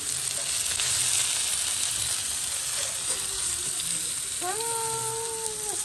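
Chicken pieces frying on a flat iron griddle plate over a gas burner, with a steady hissing sizzle. A steady held tone sounds for a little over a second about four and a half seconds in.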